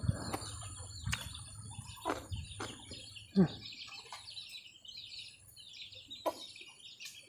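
Birds chirping in short high calls, with a few sharp knocks and one brief falling call about three and a half seconds in.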